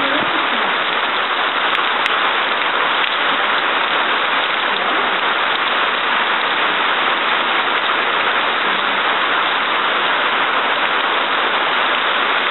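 Steady downpour of tropical rain falling on a lawn and the trees around it.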